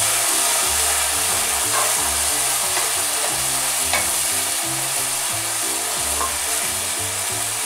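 Rice and sausage sizzling in a hot pot as white wine cooks off, stirred with a wooden spoon, with a few light scrapes of the spoon against the pot.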